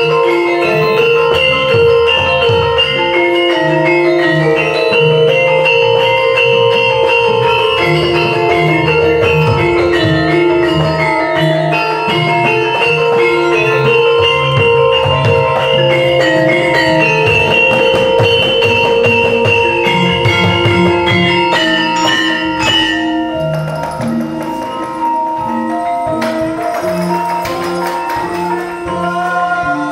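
Javanese gamelan ensemble playing an ayak piece in pelog barang: saron and bonang metallophones ring out the melody in busy runs of struck notes over kendhang hand drums and gongs. The playing grows a little softer about two-thirds of the way through.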